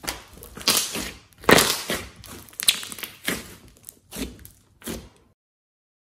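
Glossy slime being squeezed and pressed by hand: a run of about eight wet squishes and crackles that stops abruptly about five seconds in.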